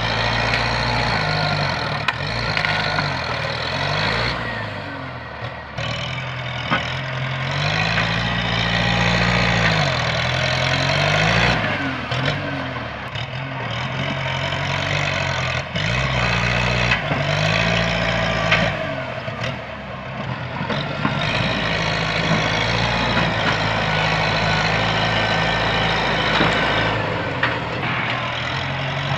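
Bulldozer's diesel engine working, its pitch rising and falling repeatedly as it revs up and drops back under load, with a steady clatter and frequent knocks over it.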